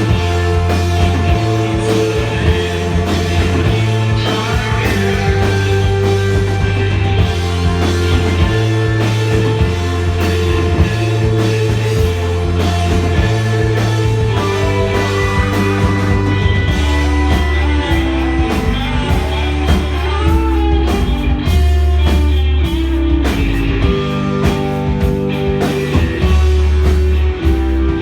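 Rock band playing live: a heavy, sustained bass line that moves to a new note every second or two under guitar, with drum hits coming through more sharply in the second half.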